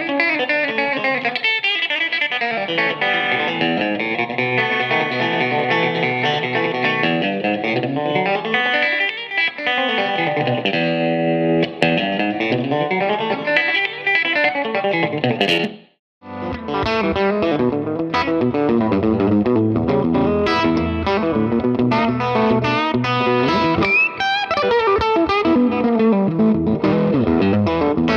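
Solo electric guitar played in the country hybrid-picking (chicken picking) style, with rippling runs of notes sweeping down and up. About halfway through it cuts off abruptly and a different electric guitar passage starts, fuller in the low end and slightly distorted.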